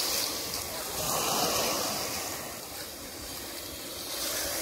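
Small waves breaking and washing up a pebble beach: a steady surf wash that swells about a second in, eases off, and builds again near the end.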